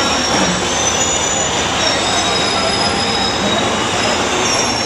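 Passenger train arriving slowly at the platform, its steel wheels squealing on the rails with several thin high tones over a steady rumble.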